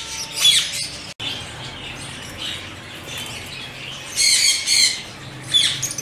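Caged parakeets squawking: short, harsh, high-pitched calls, with a loud cluster about four seconds in.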